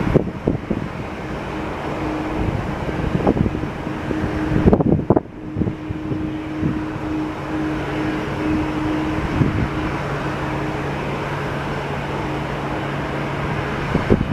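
Steady rumble of jet airliners at a distance, with a low hum and wind buffeting the camera's microphone in scattered thumps.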